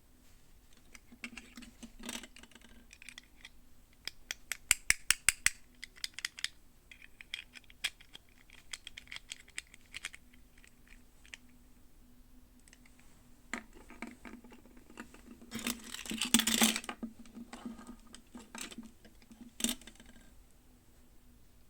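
Hands unboxing and handling plastic toy packaging and small doll pieces: scattered light taps and clicks, a quick run of about eight sharp clicks about four seconds in, and a louder rustling burst about sixteen seconds in.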